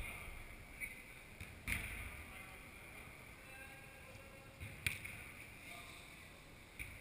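A football being kicked or striking the boards: three sharp thuds a few seconds apart, echoing in a large indoor sports hall, with faint distant shouts between them.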